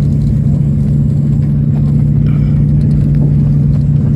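Aircraft engine drone heard inside the cabin in flight: a loud, steady low hum that holds one pitch.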